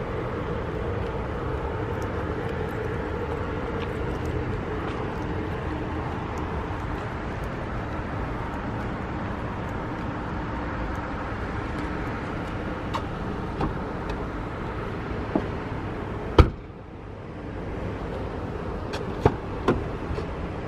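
Steady traffic-like outdoor rumble with scattered light clicks. A sharp loud click comes about two-thirds of the way through, and two smaller clicks near the end as a car door is reached for and opened.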